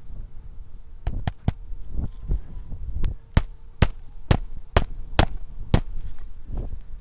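Hammer driving a roofing nail into the roof decking under a lifted asphalt shingle: three light setting taps, then six sharp, evenly spaced blows about half a second apart as the nail is driven flush.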